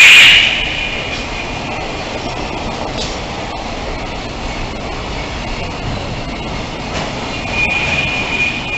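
Freight train's container wagons running through a station, a steady rumble with faint clicks over the rail joints. A loud high tone cuts off suddenly at the very start, and a thin steady high tone comes in near the end as the last wagons pass.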